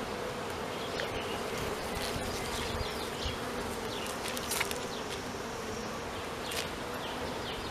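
Honeybees buzzing in a steady hum over an open hive, with a few faint clicks.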